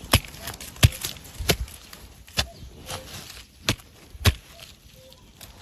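A stick striking and digging into forest soil to loosen a wild mushroom from the ground: about six sharp knocks at uneven intervals, with softer scrapes between.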